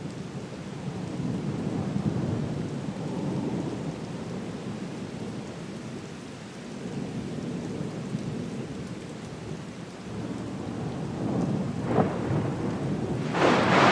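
Thunderstorm: steady rain with low rolling thunder that swells and fades. A sharp crack of thunder comes about twelve seconds in, and a loud thunderclap near the end.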